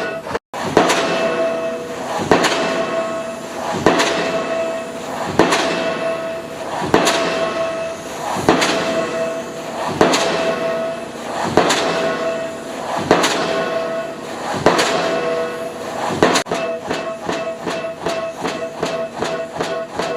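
Pile-driving hammer striking a pile, one ringing blow about every second and a half; about 16 seconds in the blows speed up to about three a second.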